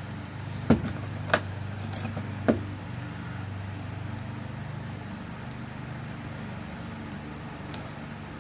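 Small metal clicks and clinks from a lock cylinder's parts being handled as its tail piece is screwed back on: four sharp clicks in the first two and a half seconds, then only a steady low hum.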